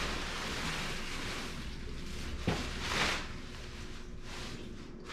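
Rummaging through a bag of shoes: rustling and handling noise, with a sharp knock about halfway through and a louder rustle just after.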